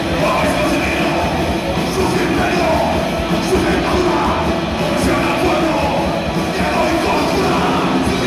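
Live Oi! punk band playing loud and steady: electric guitars, bass guitar and drum kit, heard as a full-band live mix.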